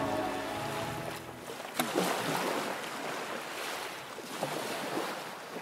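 Sea surf washing on a shore, taking over as the closing music fades out in the first second and a half, with a short sharp splash-like crack about two seconds in; the wash slowly gets quieter.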